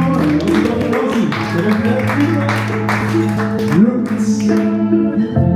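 A rap backing track playing, with held low bass notes and a voice over it. Near the end a sustained chord of steady tones takes over.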